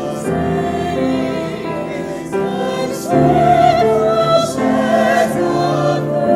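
A choir singing slow, sustained chords, growing louder about three seconds in.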